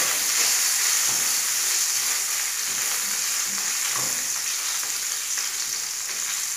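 Sliced sausage sizzling steadily in hot ghee in a nonstick frying pan, stirred around with a silicone spatula.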